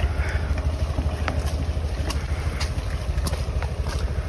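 Wind buffeting the microphone in a steady low rumble, with a few sharp clicks.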